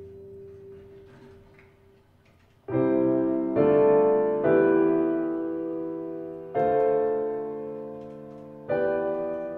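Background music: piano chords, about five, each struck and left to ring and fade, coming in a few seconds after a quiet start.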